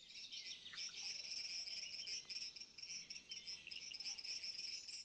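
Forest nature ambience: a dense, continuous chorus of high chirping from insects and birds, with an occasional lower bird call standing out.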